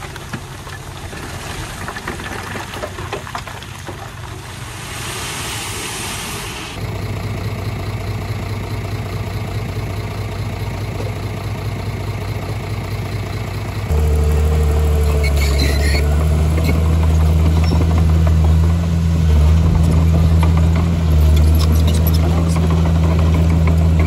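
Heavy construction machine's diesel engine running steadily, its sound changing abruptly about 7 seconds in and again about 14 seconds in, when it becomes louder with a strong low hum. A brief high squeal sounds about 15 seconds in.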